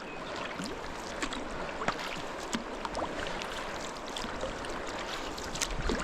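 Kayak paddle strokes in moving river water: irregular small splashes and drips over the steady rush and gurgle of a gentle current.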